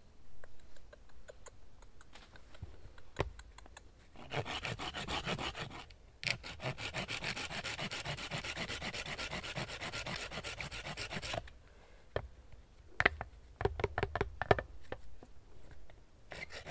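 Hand saw cutting through a knotty log with rapid back-and-forth strokes. The sawing starts about four seconds in, breaks briefly, runs on to about eleven seconds, and is followed by a few scattered knocks and scrapes.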